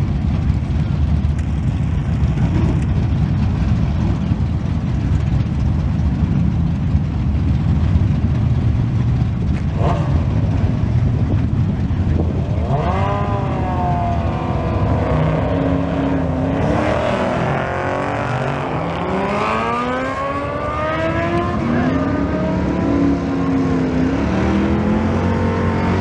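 A second-generation Kawasaki ZX-10R's inline-four and a drag car's engine idle at the starting line with a heavy, steady rumble. About halfway through, the engines rev and accelerate, their pitch climbing and dropping again and again as they pull through the gears down the drag strip.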